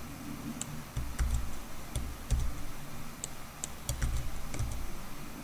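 Computer keyboard typing: irregular single keystrokes, some with a dull low thump, while an equation is entered.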